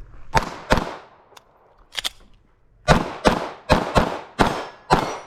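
A 9mm pistol fired fast in a competition stage string: two shots in the first second, a close pair at about two seconds, then a rapid run of about six shots from three to five seconds in.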